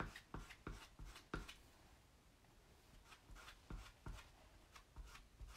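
Faint short scraping strokes of a small squeegee pulling chalk paste across a silkscreen stencil: several in quick succession at first, a short lull, then more strokes from about three seconds in.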